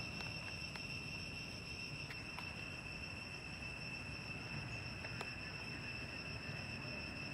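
Insects droning steadily at a constant high pitch, with a few faint clicks.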